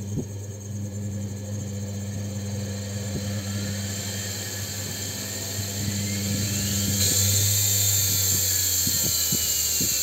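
Washing machine motor fed through a rotary dimmer used as a speed control: a steady electrical hum while the knob is turned up slowly, then about six seconds in the motor spins up with a rising whine, whose pitch falls away again over the last few seconds as it slows.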